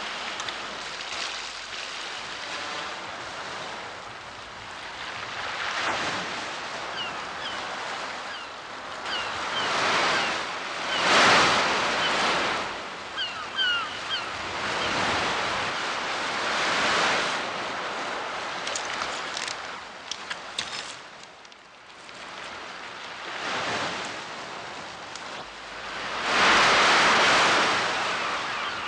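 Rough surf breaking and washing on a shingle beach, surging and falling back every few seconds in wind. Gulls give short calls now and then, and a few sharp clicks come about two-thirds of the way through.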